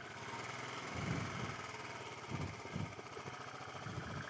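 Royal Enfield 350's single-cylinder engine running at low revs as the motorcycle picks its way over a rocky dirt trail. A few heavier low pulses come about a second in and twice more a little after two seconds.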